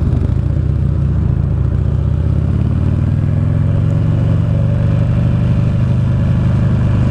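2009 Buell Lightning Long XB12SS's air-cooled V-twin engine pulling away and accelerating, its low note rising in pitch over the first few seconds and then holding steady as the motorcycle cruises, heard from the rider's seat.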